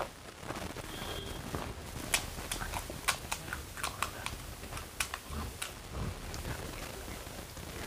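Crisp fuchka (pani puri) shells cracking as fingers break holes in them and stuff in potato filling: a run of sharp, dry cracks and crackles, thickest in the middle.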